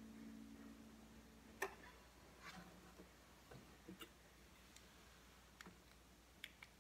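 The last strummed acoustic guitar chord dies away and is cut off by a sharp click about one and a half seconds in. After that, faint scattered clicks and taps of handling break a near-silent room.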